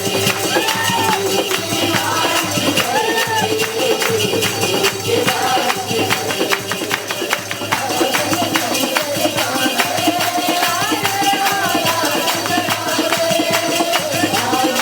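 Hindi Christian worship song music: a melody carried over a steady, fast percussion beat.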